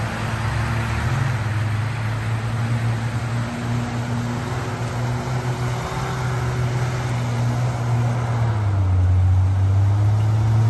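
Off-road four-wheel-drive vehicle's engine running at fairly steady low revs under a steady hiss of tyre and wind noise; the engine grows louder and slightly deeper about eight and a half seconds in.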